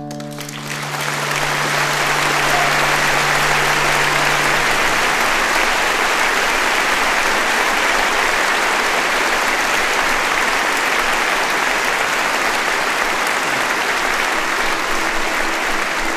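Audience applause that swells within the first second or two and then goes on steadily, while the last guitar chord of the song dies away over the first few seconds.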